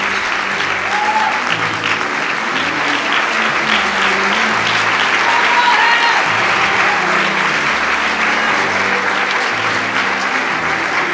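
A large banquet-hall audience giving sustained applause as a standing ovation, with background music carrying a bass line that shifts every second or so underneath the clapping.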